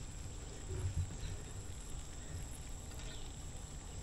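Quiet outdoor background: a faint, steady, high-pitched insect drone over a low rumble, with a soft low bump about a second in.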